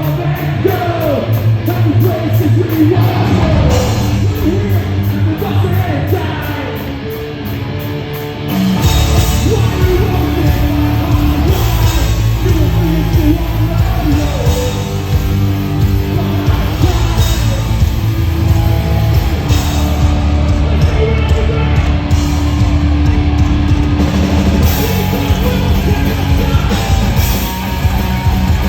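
Live hardcore punk band playing, with distorted guitars, drums and a shouted vocal; the full band comes in hard after a brief quieter stretch about eight seconds in.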